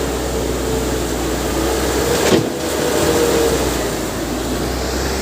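Caterpillar 321B excavator's diesel engine running steadily with a held tone. A single sharp knock sounds a little over two seconds in.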